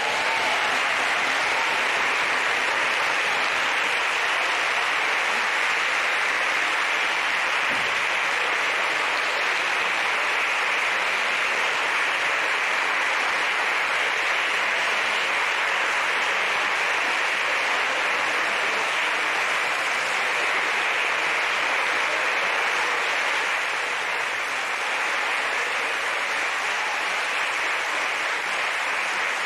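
Deputies in a parliamentary chamber applauding steadily, easing off a little near the end.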